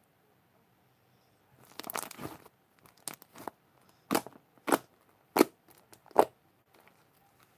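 Fluffy homemade slime being poked and pressed by hand: a crinkly, crackling squish about two seconds in, then a run of short, sharp pops, the four loudest coming about two-thirds of a second apart.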